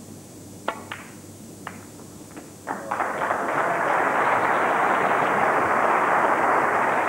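A snooker cue strikes the cue ball and balls click together several times, then a crowd breaks into applause about three seconds in. The applause swells and holds as the loudest sound.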